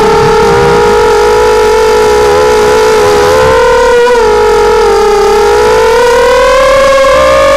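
Close, steady whine of a hexacopter's six Tiger MN1806-2300kV brushless motors and propellers in fast flight, heard from the onboard camera. The pitch holds level, dips slightly midway, then climbs gradually toward the end as the throttle comes up.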